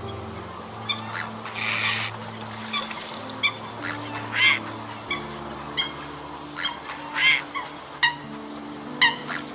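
Eurasian coots giving short, repeated honking calls, about one or two a second, as they fight off a grey heron at their nest. Background music with low held notes plays underneath.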